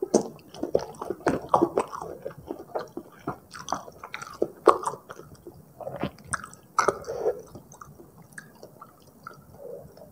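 Close-miked chewing of Indomie goreng fried noodles with rendang: a run of quick, wet mouth clicks and smacks. They come thickest in the first two seconds, then more sparsely.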